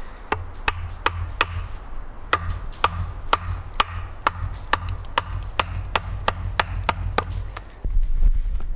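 Hatchet chopping a log: about sixteen sharp chops, roughly two a second, with a short pause about a second and a half in. The chops stop near the end, where a louder low rumble takes over.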